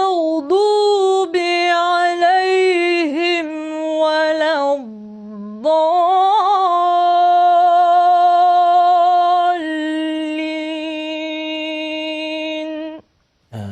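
A woman's solo voice singing unaccompanied in an ornamented Arabic style, with long held notes, vibrato and melismatic turns. Her pitch dips low around five seconds in, and the voice cuts off suddenly near the end.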